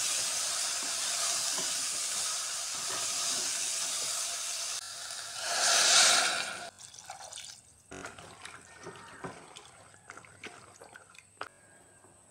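Chickpea and tomato masala sizzling steadily in a hot pressure cooker as it is stirred. Around five seconds in, water is poured in with a loud rushing hiss. After that the sizzling stops and only a few faint clicks remain.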